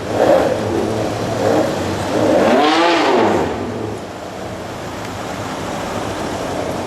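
A supercar engine revving in short blips, then one bigger rev that climbs and drops back about two seconds in. After that it settles to a steady, lower running sound.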